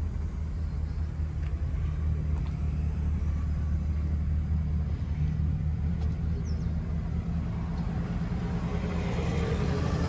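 An engine idling with a steady low rumble.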